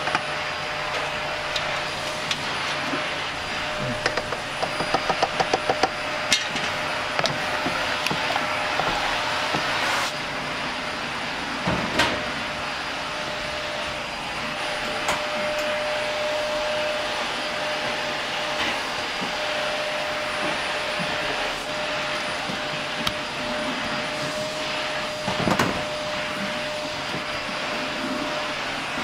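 Restaurant kitchen noise: a steady hum from the exhaust ventilation with a faint steady tone. Knocks and utensil clatter over it, with a quick run of knocks about four to six seconds in and a few single knocks later.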